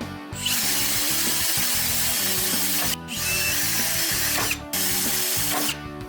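A power tool running with a loud, even hiss in three long stretches, cut by two brief pauses, over background music.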